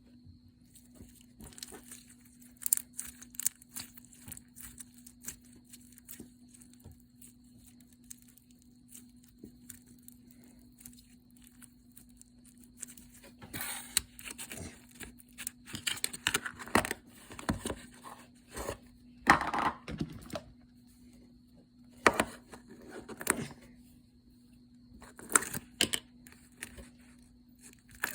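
Hands playing with slime: irregular sticky clicks, crackles and squishes, sparse at first and coming in denser clusters in the second half, over a faint steady hum.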